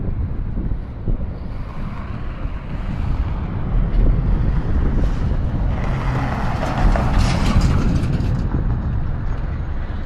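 City street traffic: a steady low engine rumble, with a passing vehicle whose hiss swells and peaks about six to eight seconds in, then eases off.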